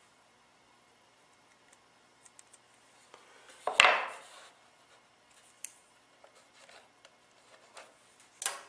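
Hand tools being handled on wood: scattered light ticks and clicks, with one loud sharp clack-and-scrape about four seconds in and another shorter one near the end.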